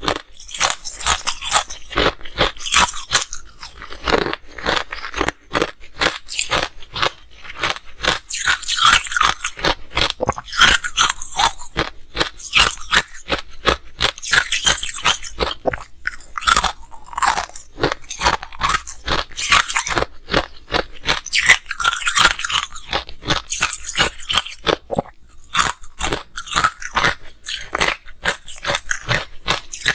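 Close-miked crunching and chewing of ice blocks coated in green powder: rapid, irregular crunches, broken by a few brief lulls.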